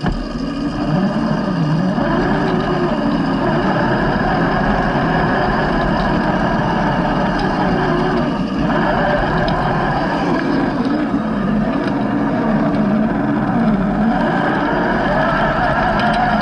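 Radio-controlled scale crawler's electric motor and gearbox whining, the pitch rising and falling with the throttle as the truck crawls along.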